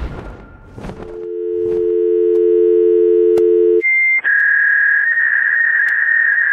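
Electronic test tones. A steady two-note tone like a telephone dial tone fades in about a second in. Just before four seconds in it breaks off and gives way to a single high, steady beep tone, like the tone that goes with broadcast colour bars.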